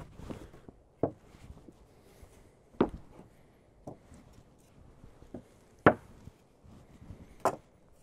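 Sawn pine boards and thin wooden sticker strips knocking against each other as a lumber stack is built, about seven sharp wooden clacks, the loudest about six seconds in.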